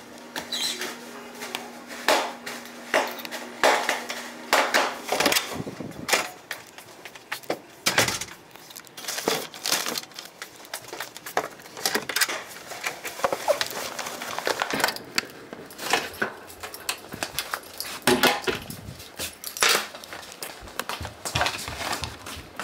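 A parcel locker being opened and a plastic mailer package pulled out and handled: a rapid run of clicks, knocks and plastic rustling, with a steady low hum for about the first five seconds.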